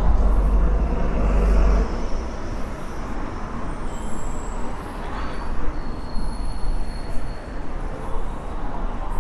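City street traffic: vehicles passing, with a heavy low rumble for the first two seconds that then drops away, over a steady wash of road noise. A few faint high-pitched tones come in around the middle.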